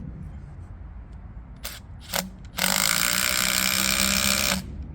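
Two short clicks, then a power driver runs hard for about two seconds, driving a lag bolt into a log, and stops sharply.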